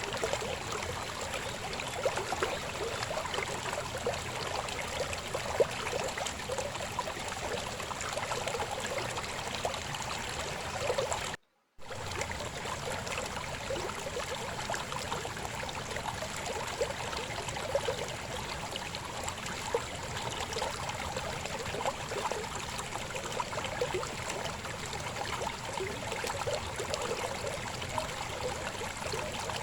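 Shallow river babbling over stones: a steady rush of flowing water with constant bubbling and gurgling. The sound drops out completely for a split second about eleven seconds in, then resumes unchanged.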